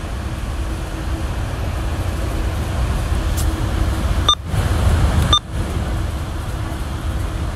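Low, steady rumble of a moving Hyundai Rotem passenger rail car heard from inside, slowly growing louder. A little past four seconds in, a scanner's squelch opens with a click for about a second of radio noise, then shuts with another click.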